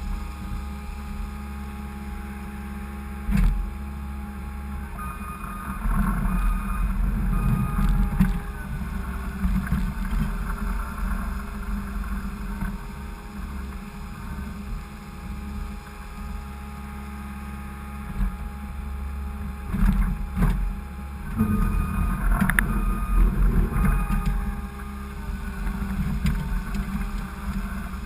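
Skid steer engine running steadily, growing louder under load from about five seconds in and again from about twenty seconds in, with a sharp knock about three seconds in and a few lighter clanks.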